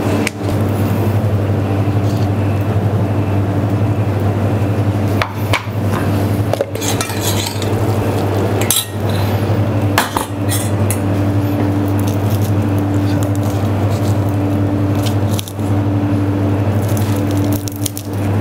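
Steady low hum of kitchen equipment, with several sharp clinks of a metal spoon against a stainless-steel saucepan and bowl. Near the end a knife cuts into a grill-charred sweet potato.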